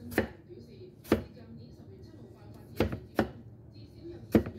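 Cleaver chopping a tomato on a wooden chopping board: about five sharp knocks of the blade striking the board, unevenly spaced.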